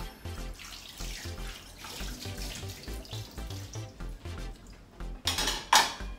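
Tap water running and splashing into a kitchen sink while a plate is rinsed, with a louder rush of water about five seconds in. Background music with a steady beat plays underneath.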